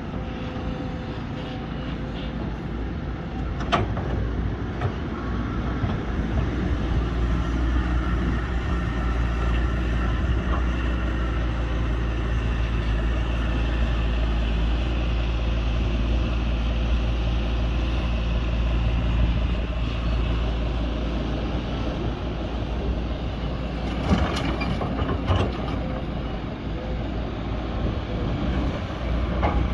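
Large excavator's diesel engine running steadily under load, a deep continuous rumble. A sharp knock comes about four seconds in and a few more knocks follow later.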